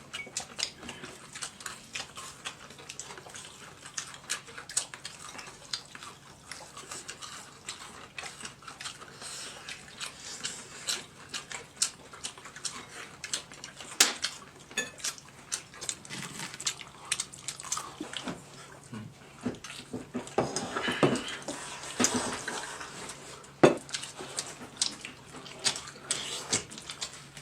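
Tableware during a meal: chopsticks, bowls and plates clicking and clinking in scattered light taps, with a few sharper knocks.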